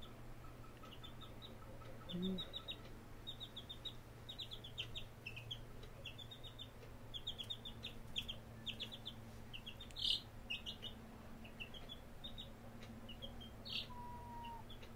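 Domestic chick peeping in quick runs of short, high peeps, with a louder call about ten seconds in and another near the end.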